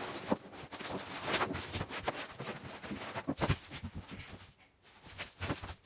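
Rustling and soft knocks of a thin Decathlon closed-cell foam sleeping mat being spread on a wooden floor and a person lying down on it. The noises thin out about four and a half seconds in.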